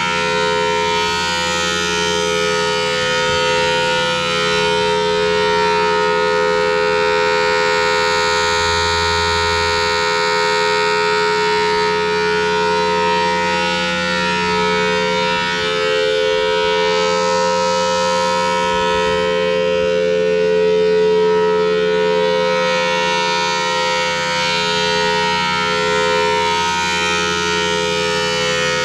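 Federal Signal Thunderbolt 1003 outdoor warning siren sounding a loud, steady, held tone with no rise or fall in pitch. The sound swells slightly every several seconds.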